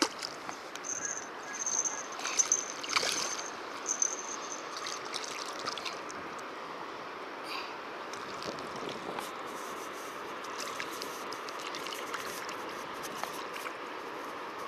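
A hooked mullet thrashing and splashing at the water's surface, loudest in the first three seconds, then a steady rush of river water.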